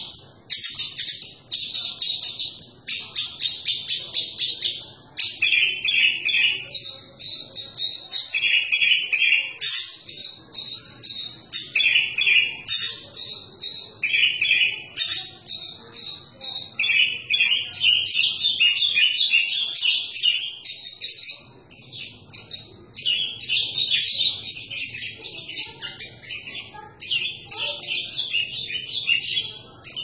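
Horsfield's bush lark (branjangan) singing a long, unbroken run of fast chirps and trills. The phrases change every second or so, packed with varied fills (isian), the sign of a bird in full song.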